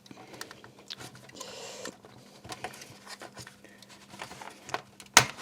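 Small clicks, taps and a brief scrape from handling the opened MiniDisc deck's casing and parts, with a louder knock near the end.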